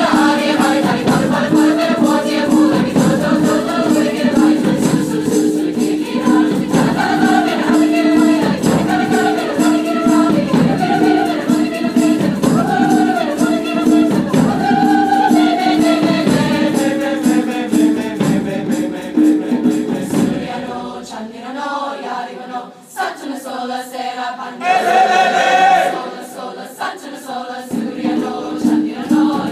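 Mixed choir singing a rhythmic song in many parts, with a held steady note under the melody. About twenty seconds in, the low voices drop out and the sound thins, with higher voices coming forward, before the full choir returns near the end.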